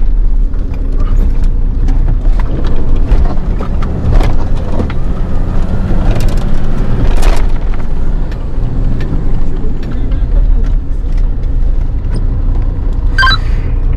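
Fire truck engine running as it drives, a steady low rumble with a few sharp knocks and rattles.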